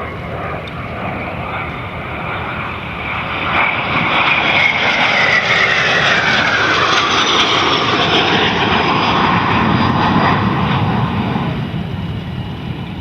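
Alpha Jet trainers, each with twin Larzac turbofans, passing by: a rumbling jet noise that builds, peaks, then fades, with a high whine that drops in pitch as they go past.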